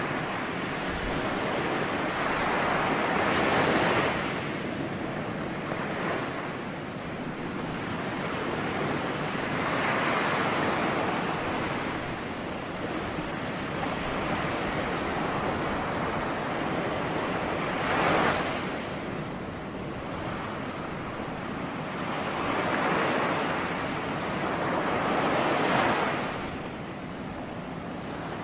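Ocean surf: waves breaking and washing in, swelling and easing every few seconds in a continuous rush of water.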